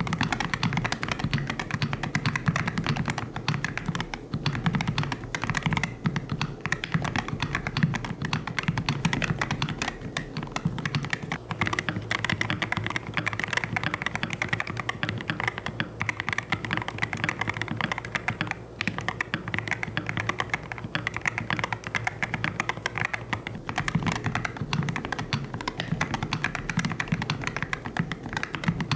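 Continuous fast typing on an IYX MU68 aluminium-cased magnetic-switch mechanical keyboard: a dense, unbroken stream of keystroke clicks.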